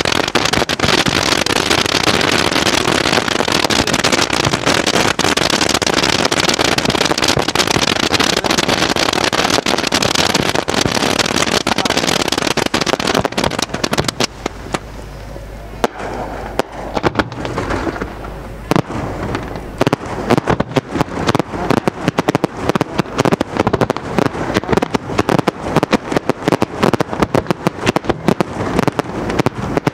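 Fireworks display: rows of fountains spray sparks with a dense, steady hissing crackle that thins about halfway through. From about twenty seconds in, rapid crackling pops take over.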